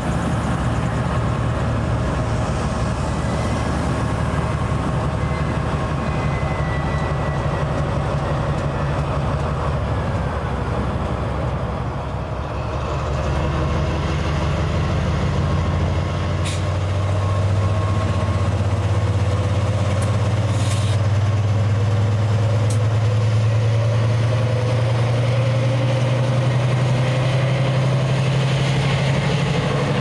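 Freightliner Class 70 diesel locomotive's GE PowerHaul V16 engine working under load as it hauls a container train slowly past, a steady low drone. The drone grows louder about halfway through as the locomotive draws level, and a few sharp clicks come around then.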